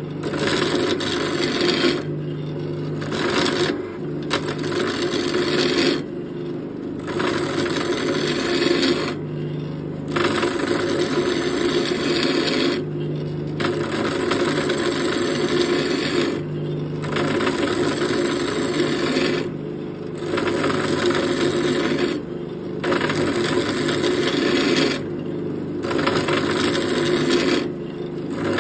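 Wood lathe running while a hand-held turning tool cuts a spinning wooden grip blank: a steady motor hum under a rough scraping of the cut. The scraping breaks off briefly every two to three seconds while the hum carries on.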